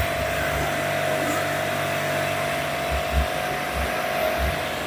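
Electric pressure washer running steadily, its jet of water hissing against an air-conditioner outdoor unit's condenser coil as the coil is washed, with the washer's motor giving a steady hum and whine under the spray.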